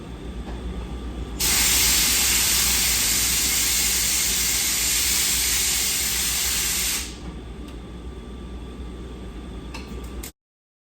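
A loud, steady hiss starts about a second and a half in and lasts about five and a half seconds over a low steady hum. All sound cuts off suddenly near the end.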